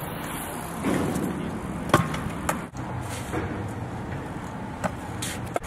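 Wheels rolling on the concrete of a skatepark, a short rumble about a second in, then a sharp clack of a board or bike hitting the concrete just under two seconds in, the loudest sound, with a few fainter knocks later.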